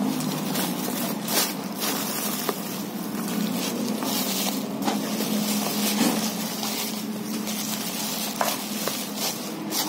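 Thick plastic bubble wrap being pulled open and handled, a continuous crinkling and rustling with scattered sharp crackles.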